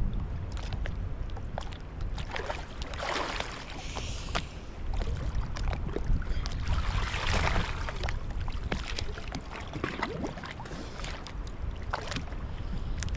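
Water splashing and sloshing around a small boat, swelling twice, with wind rumbling on the microphone and scattered knocks.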